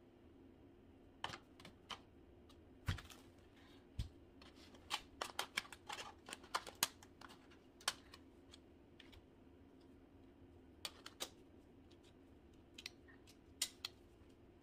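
Plastic hula hoop segments clicking and tapping as they are handled and snapped together: irregular sharp clicks, coming quickest in a cluster around the middle, over a faint steady hum.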